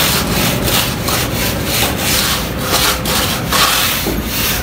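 Hand float rubbing back and forth over fresh cement plaster on a beam face, a rhythmic scraping of about three strokes a second, as the plaster surface is floated smooth.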